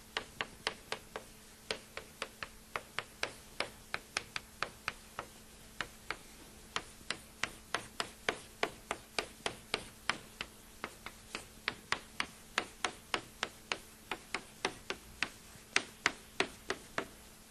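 Chalk writing Japanese characters on a blackboard: a quick, irregular run of sharp taps and clicks, about two to three a second, as each stroke lands. The taps stop just before the end.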